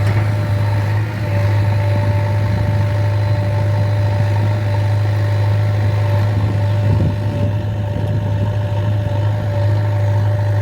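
JCB 3DX Eco Xpert backhoe loader's 49 hp diesel engine running steadily, a deep even hum with a thin steady whine above it.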